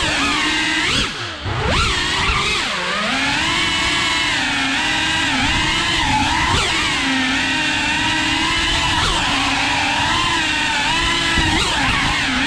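FPV quadcopter's motors and propellers whining, the pitch rising and falling constantly with throttle. About a second in the whine drops sharply and dips in level, then climbs back.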